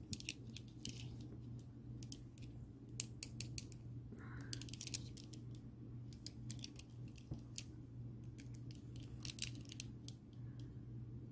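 Chunky beads of a stretch bracelet clicking lightly against each other and against fingernails as it is handled, in irregular little clusters of sharp clicks; the owner takes the beads for acrylic. A faint steady low hum runs underneath.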